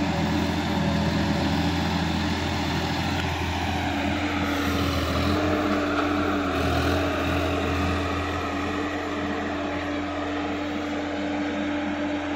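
Sonalika DI-50 RX tractor's diesel engine running steadily under load while tilling a flooded, muddy paddy field, with a low hum and an engine note that rises a little about five seconds in.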